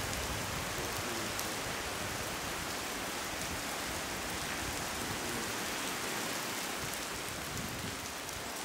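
Steady rain falling during a thunderstorm, an even hiss of drops striking concrete and foliage.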